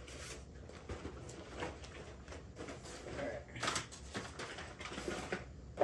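Knife boxes being handled and opened: scattered light knocks, taps and rustling.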